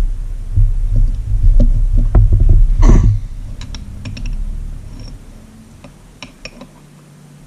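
Flat-blade screwdriver clicking and scraping against an outboard's upper crankshaft oil seal and its bearing cap as the seal is slowly pried out. Dull low knocks run under the clicks for the first three seconds, the sharpest click comes about three seconds in, and fewer, lighter clicks follow.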